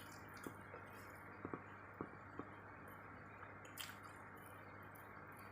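Faint wet chewing of soft potato fritter, with a few small mouth clicks and smacks scattered through, over a steady low hiss.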